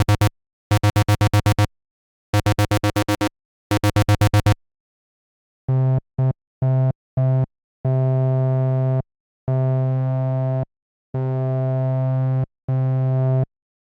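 Synthesized telephone sound effects. First comes a rapid trilling ring in four bursts of about a second each. Then a run of buzzy tones: four short ones, followed by four longer held ones.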